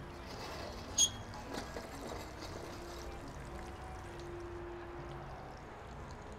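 Sweet potato patties sizzling steadily in a frying pan. About a second in there is one sharp metallic clink with a brief ring, followed by a couple of faint clicks.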